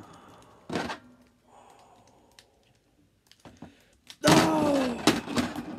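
Plastic wrestling action figures handled and knocked against a toy wrestling ring: a sharp thud about a second in, then faint clicks and taps. A little after four seconds a voice lets out a loud, falling 'ohh', followed by more small taps.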